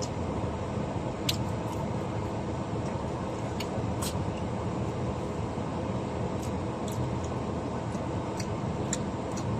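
Steady low rumble of a minivan heard from inside the cabin, with scattered short clicks over it.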